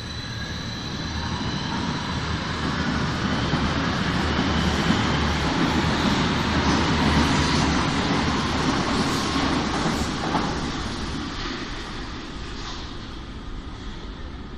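Berlin U-Bahn HK-series small-profile train pulling out of an underground station. Its motors whine with a rising pitch as it accelerates, and the rumble of the wheels grows loud around mid-way, then fades as the train leaves.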